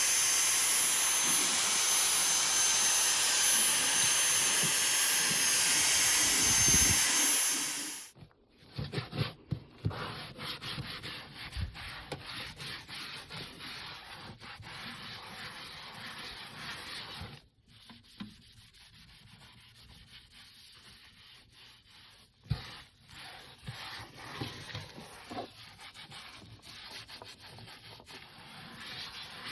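A loud steady hiss for about the first eight seconds, which cuts off suddenly. It is followed by a cloth rubbing and wiping dust off the disc repair machine, with scraping and a few small knocks.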